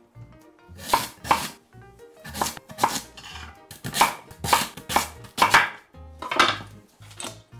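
Chef's knife cutting a raw sweet potato into wedges on an end-grain wooden cutting board: about ten separate chops at an uneven pace, each stroke going through the firm flesh and striking the board.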